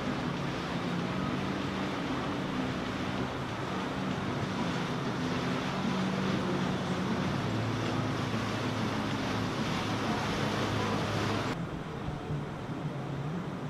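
Boat engines running, a steady low hum with several pitches held together, under a broad rushing hiss. About eleven seconds in the hiss drops away abruptly, leaving the lower engine hum.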